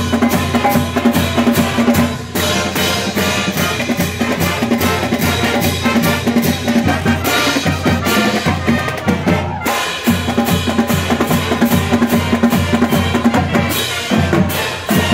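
Marching band playing: a drumline of snare drums, tenor drums and cymbals drives a fast, dense beat under the band's brass.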